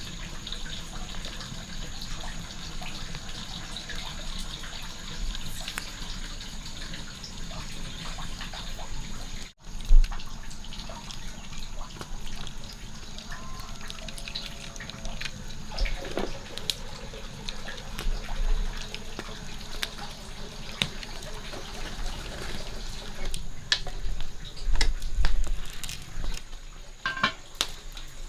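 Water running and splashing, typical of washing or rinsing in a basin, with scattered clicks and knocks from handling, loudest in the second half.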